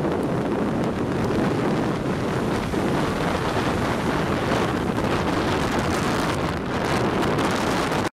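Rough surf breaking and washing in on a stony shore, with strong wind buffeting the microphone. The sound cuts off abruptly at the very end.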